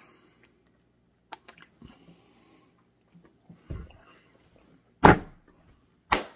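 Small clicks and a brief sputter from a squeezed sauce bottle, then two loud, brief rubbing swipes near the end as hands are brushed together.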